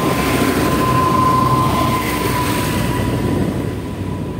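Vehicle driving on a road while a dump truck passes close by in the opposite direction: a loud, steady rumble and rush of road noise with a steady whine, swelling about a second in.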